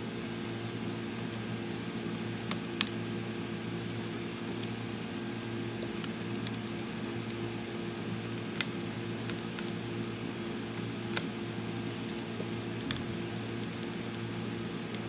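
Small sharp clicks from a Torx T5 screwdriver and screws being taken out of a MacBook Pro logic board, the loudest about three seconds in, over a steady low hum.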